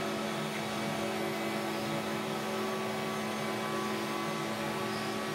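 Four-spindle rotary CNC router running steadily as its spindles cut wooden cabriole-leg blanks: an even machine drone with several held tones.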